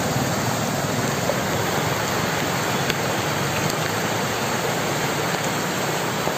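Swollen brown floodwater rushing and churning past a wall: a steady, even rush of water.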